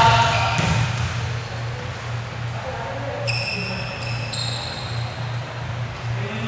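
Indoor basketball game sounds: basketball shoes squeak sharply on the court twice, about three and four and a half seconds in. A low, evenly pulsing hum runs underneath.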